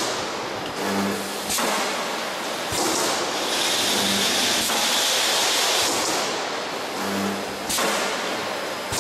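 Transformer radiator panel production line machinery running: repeated sudden bursts of hissing noise, a longer hiss through the middle, and short spells of low hum.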